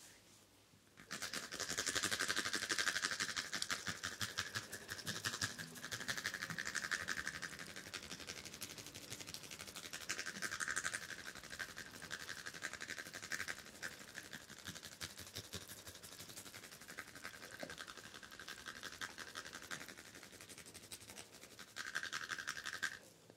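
Fingertips rubbing and scratching over skin and hair during a head massage, close to the microphone: a dense, rapid, rasping rustle that starts abruptly about a second in and stops just before the end.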